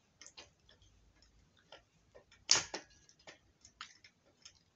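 Scattered light clicks and small knocks from handling and bolting together a metal-legged work table, with one louder knock about two and a half seconds in.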